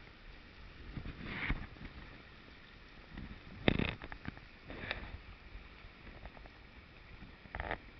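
Shallow trout stream running over riffles, with a few sharp knocks and sloshes close to the microphone, the loudest about four seconds in.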